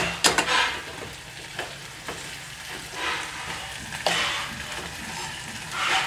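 Metal spoon stirring diced potatoes frying in an aluminium pot, scraping and clinking against the pot a few times over a light sizzle.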